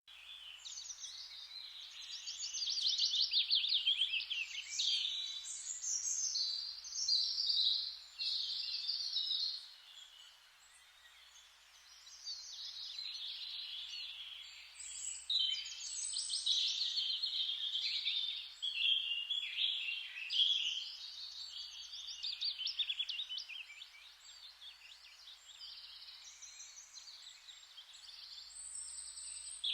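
Forest ambience: a chorus of songbirds chirping and trilling over a steady hiss, with a brief lull about ten seconds in.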